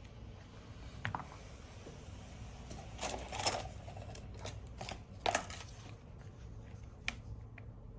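Scattered small clicks and taps of tools and tiny parts being handled on an opened smartphone during a repair, loudest a little after five seconds in, over a low steady hum.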